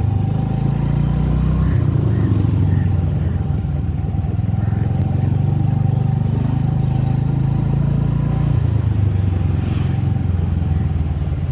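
Motor scooter ridden along a street, heard from the rider's seat: the engine runs steadily under a heavy low rumble that shifts about two seconds in and again near the end, with a thin steady whine.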